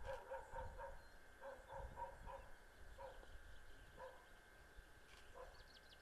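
Faint dog barking in short runs of several barks, a first quick run of four and then scattered barks, over a faint steady high tone.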